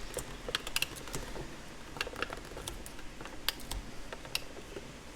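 Scattered light clicks and taps of hands wrapping Gorilla Tape around a flip clock's knob to make a pull handle, over a faint steady hiss of rain.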